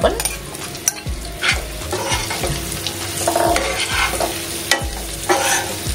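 Spice-coated raw banana slices sizzling as they shallow-fry in hot oil in a non-stick frying pan, while a spatula stirs them, knocking and scraping against the pan every second or so.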